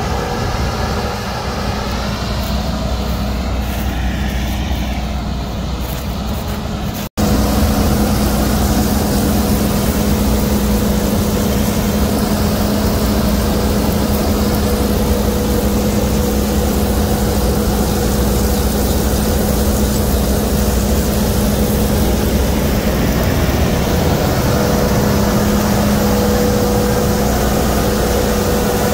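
Fendt Ideal 9 combine harvester running while it picks up and threshes a barley swath: a steady machine drone with a constant low hum and a higher hum over it. A brief dropout about seven seconds in, after which the combine is louder and closer.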